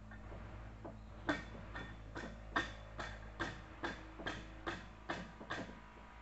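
About a dozen sharp metal-on-metal hammer taps, two to three a second, each ringing briefly, as a gear is tapped down into place in a forklift automatic transmission case.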